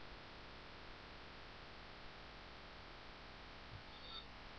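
Near silence: the faint steady hiss and hum of the recording's noise floor, with a faint brief sound about four seconds in.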